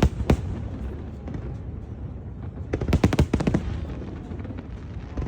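Fireworks shells bursting in sharp bangs: one right at the start and another a moment later, then a quick volley of cracks about three seconds in, over a steady low rumble.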